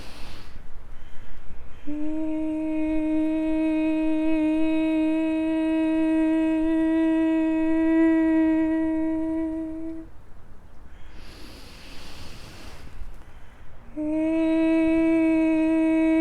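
A woman's voice holding the vowel 'ee' [i] on one steady, fairly high pitch for about eight seconds. A breath follows, then the same tone starts again near the end, as in a toning or sound-healing exercise.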